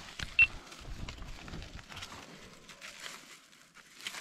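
Handling noise of sacking being wrapped and tied with string around a chimney-sweeping weight on wooden floorboards: rustling and scattered light knocks, with one sharp, short high-pitched click about half a second in.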